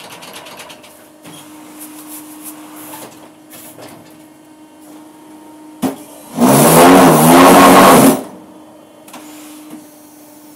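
Concrete paving block machine running with a steady hum and light clatter. About six seconds in a sharp clank comes, then a loud buzz with a wavering pitch for about two seconds, which is typical of the mould vibrating to compact the concrete.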